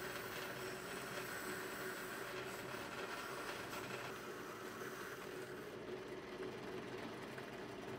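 Drill press running with a brass wire wheel scrubbing green corrosion off a brass candle-holder part: a steady motor hum under a scratchy hiss of wire on metal. The hiss drops away about six seconds in as the part comes off the wheel, leaving the motor running.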